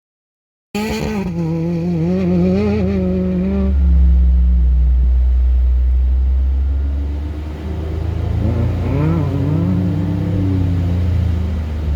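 Off-road desert race vehicle's engine running, cutting in abruptly after a moment of silence, its pitch rising and falling with the throttle in the first few seconds and again near the end, over a heavy low rumble.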